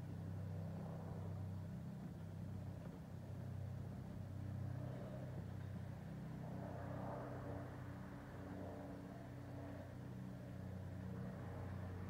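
Steady low rumble of a running vehicle engine, with a swell of passing traffic noise a little past the middle. No birdsong is heard.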